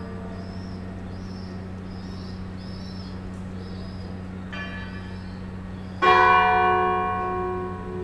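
Church bell struck twice: a faint stroke about four and a half seconds in, then a loud stroke about six seconds in that rings on and slowly fades. Birds chirp faintly over a steady low hum.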